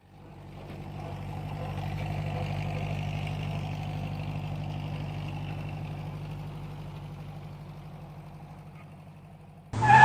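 A small engine running steadily with a fast even throb, fading in at the start and fading out toward the end. A short, loud two-tone sound begins right at the end.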